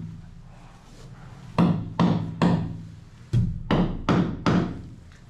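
Hand hammer blows, seven in all, three and then four, about two a second, each ringing briefly, as bolts are driven through a fiberglass boat bulkhead.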